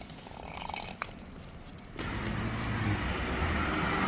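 A car passing: its tyre and engine noise with a low hum comes in about halfway through and grows louder toward the end. A single short click comes about a second in.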